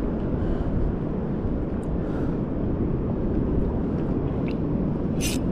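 Strong sea wind buffeting the microphone: a steady, dense low rumble. A short hiss cuts in near the end.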